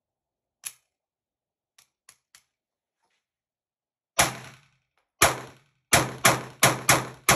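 Walther P22 .22 LR pistol: a sharp click and then a few small clicks as a jam is cleared, then seven shots. The first two come about a second apart and the rest follow quickly at about three a second, each with a short echo.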